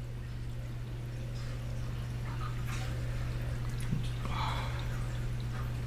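Reef aquarium pumps and water circulation: a steady low hum with faint trickling and dripping water.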